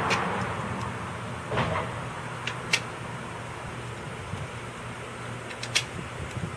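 A handful of short, sharp metal clinks and taps as bolts and mounting hardware are handled while a backrest is fitted onto a drilled flat luggage plate, over a steady low hum.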